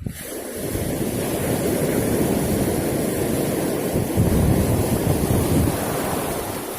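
Surf and strong wind on the shore, with the wind buffeting the microphone as a gusty low rumble under a steady rushing hiss. The noise starts abruptly at the beginning.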